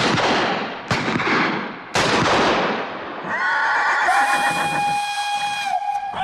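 Three loud bangs about a second apart, each ringing out as it fades. A little over three seconds in, a held chord of several steady high tones starts, like a whistle.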